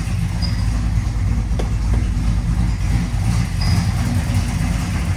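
A 1967 Chevelle's 427 big-block V8 running steadily at idle, with a few brief high chirps from a slightly squealing drive belt.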